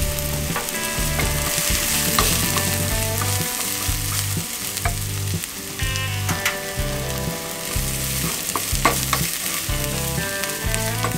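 Chopped shallot and garlic sizzling in oil in a small ceramic nonstick frying pan, stirred with a wooden spatula that scrapes and taps across the pan. A steady low tone shifts in pitch every half second or so underneath.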